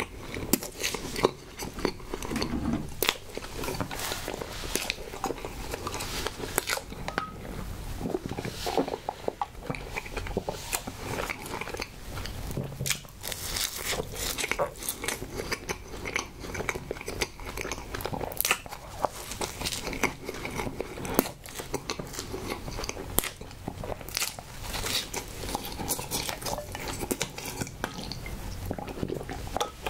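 Close-miked biting and chewing of soft Hostess Twinkie Sno Ball cakes (marshmallow and coconut coating over chocolate cake), full of wet mouth clicks and smacks. Near the end comes a sip through a straw.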